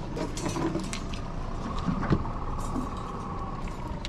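Light clinks and knocks of fishing gear being handled aboard a trolling boat, over a low steady rumble from the boat's motor and wind.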